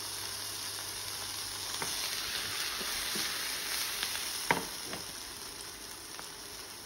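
Button and oyster mushrooms sizzling steadily as they fry in butter in a hot frying pan. The pan is tossed, with a few knocks of the pan and utensils on the cooktop, the loudest about four and a half seconds in.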